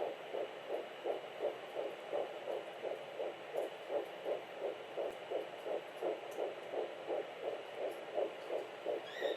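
Home fetal Doppler picking up a twin's heartbeat at 9 weeks 5 days: rapid, even pulses about three a second, matching the 170–180 beats a minute measured for the twins, over a steady hiss.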